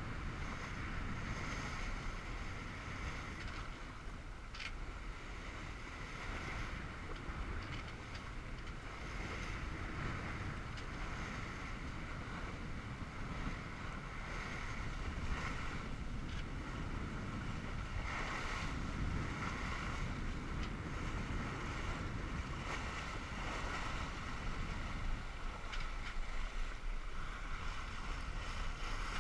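Wind buffeting the microphone over the steady rush and splash of water along the hull of a Tanzer 22 sailboat under sail on a beam reach.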